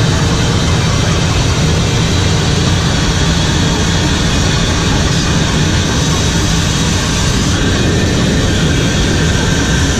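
Footplate noise of the LNER Class A4 steam locomotive 60009 under way: a loud, steady din with a deep rumble from the locomotive working and running along the rails.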